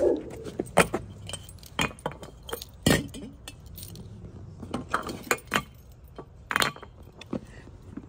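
A bunch of keys jangling and clinking in irregular short bursts, with a few sharper knocks among them.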